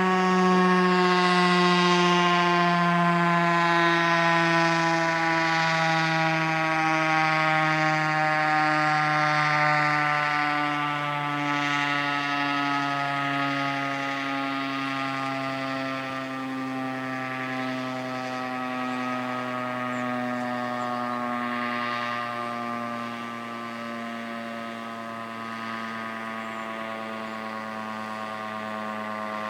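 Federal Signal STH-10A outdoor warning siren, driven by a three-phase Marathon motor, winding down after a 5-second test blast. It is one continuous wail whose pitch slides slowly lower as it gradually fades.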